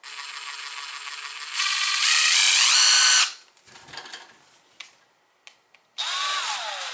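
12-volt brushless 3/8-inch cordless impact wrench running free without load, its variable-speed trigger feathered: a slow run that speeds up with a rising whine and stops about three seconds in, then, after a few light clicks, a second run that starts fast and slows down near the end.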